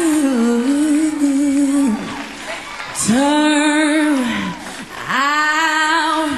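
A woman singing live into a handheld microphone: three long, held notes that bend up and down in pitch, with short breaks between them.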